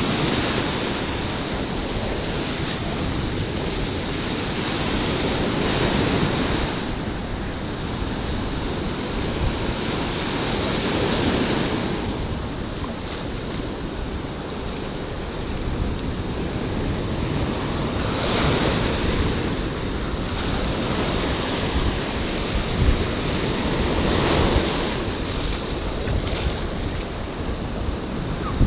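Surf breaking and washing up the beach, swelling every few seconds as each wave runs in, with wind buffeting the microphone.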